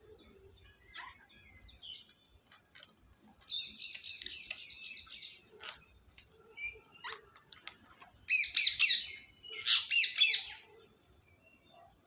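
Rose-ringed parakeets calling: a burst of rapid, shrill chattering notes a few seconds in, then two louder bursts of quick screeching notes later on, with a few faint clicks in between.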